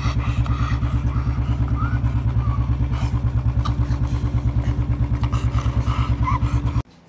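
Motorcycle engine idling with a steady rapid thump, about nine beats a second, cutting off abruptly near the end.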